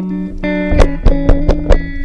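Background music led by guitar, with held notes. About a second in comes a quick run of five sharp struck hits.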